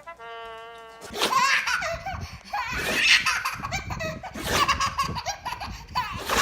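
A young child laughing hard in repeated belly laughs, starting about a second in after a short held musical note.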